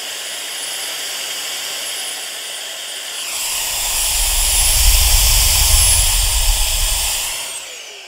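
A small electric motor in a cordless handheld vacuum / air duster runs with a high whine. About three seconds in it grows louder, with a deep rush of air added. Near the end it winds down, the whine falling away.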